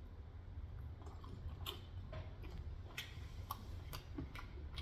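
Faint chewing of food, with a few soft, scattered mouth clicks over a low steady hum.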